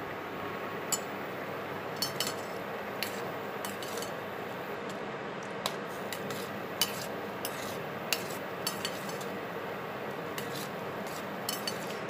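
A steel spoon stirs boiling macaroni in a steel pan, clinking irregularly against the pan's side over a steady background hiss.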